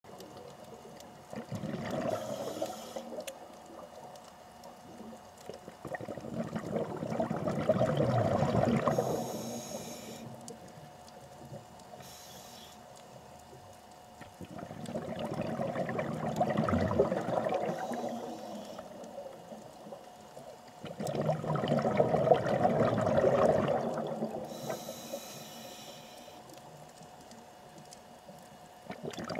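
A scuba diver breathing through a regulator underwater: four long bubbling exhalations, one every six to eight seconds, with a brief hiss between some breaths.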